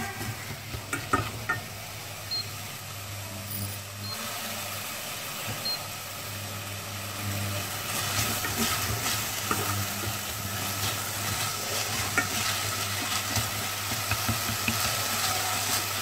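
Chopped meat sizzling as it is stir-fried in a stainless-steel pot and stirred with wooden chopsticks, which scrape against the pot. The crackle grows livelier about halfway through, over a steady low hum.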